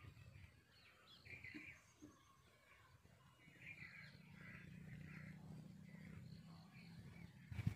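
Faint outdoor ambience with small birds chirping now and then, and a low steady drone through the middle. A single sudden thump, the loudest sound, comes right at the end.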